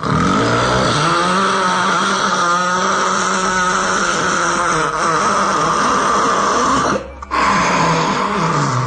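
A very loud, drawn-out snore with a rough buzz, broken by a brief pause about seven seconds in, then a shorter snore that falls in pitch.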